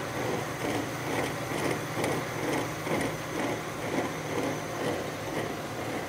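Rear axle of a Mercury Grand Marquis turning under power, a rhythmic rumbling from the rear wheel bearing pulsing about twice a second over a steady drivetrain hum. It is the sign of a bad rear wheel bearing.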